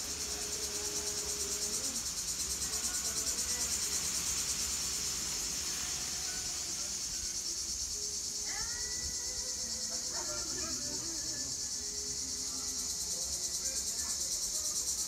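Steady, high-pitched chorus of insects shrilling, with a fine rapid pulse.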